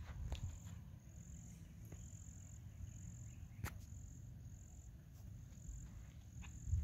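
Insects trilling in a high-pitched chorus that pulses on and off every second or so, over a low rumble, with a few faint clicks and one sharper click a little past halfway.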